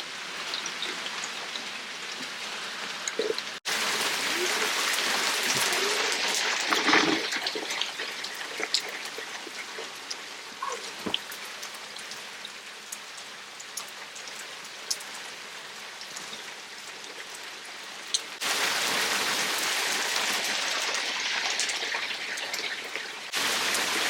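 Steady rain falling, with many small drops ticking on surfaces. The rain jumps abruptly louder a few seconds in, drops softer past the middle, and comes up loud again near the end.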